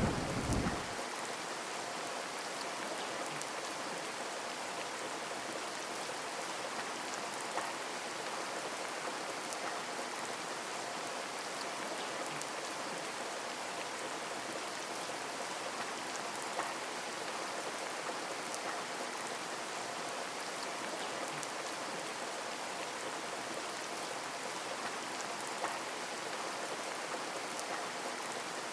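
Heavy rain falling steadily, an even hiss with scattered louder drops. The last of a thunder rumble dies away in the first second.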